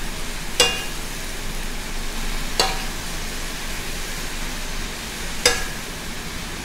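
Chicken and vegetables sizzling in a stainless steel wok as a metal spoon stirs them, with three sharp clinks of the spoon against the pan.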